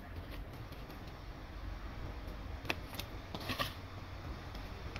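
A few light clicks and taps past the middle as garlic cloves are dropped into a non-stick electric pot, over a low steady hum.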